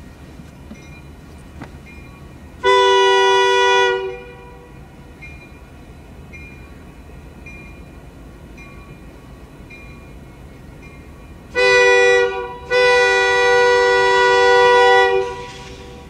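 Union Pacific diesel locomotive's air horn sounding one blast of about a second, then, near the end, a short blast followed by a longer one; its two-note chord is weird and sounds like a car horn. The low rumble of the passing train runs underneath.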